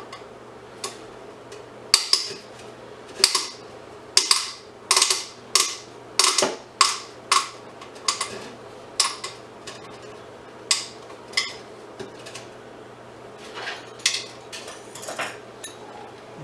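Small metal parts clinking and clattering in irregular sharp knocks while a scrapped item is being taken apart by hand, over a faint steady low hum.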